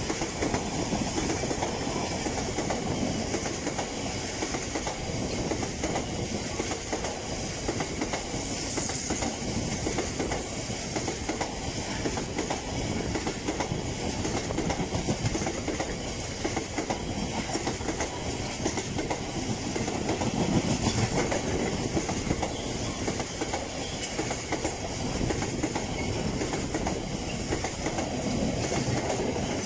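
Freight train of bogie tank wagons rolling steadily past over a level crossing, the wheels and bogies clattering continuously along the rails.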